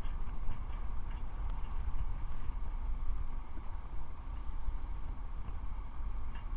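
Wind buffeting the camera microphone: an uneven low rumble, with a few faint ticks in the first two seconds.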